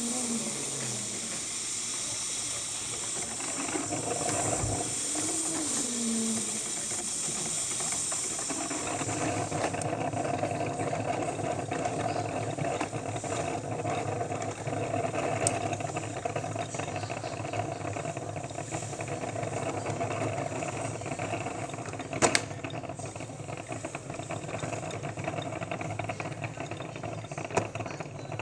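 Cuisinart drip coffee maker brewing, with a steady hissing of steam. About nine seconds in, the high hiss drops away and a lower, steady brewing noise carries on, with a few small clicks.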